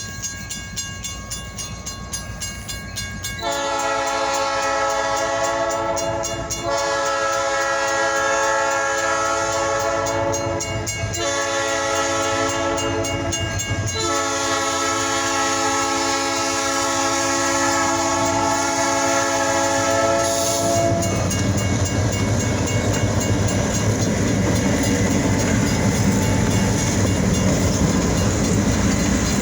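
EMD SD40-2 diesel locomotives' air horn sounding four blasts, long, long, short, long, the grade-crossing signal; then the locomotives' engines rumble and the wheels clack over the rails as the train passes.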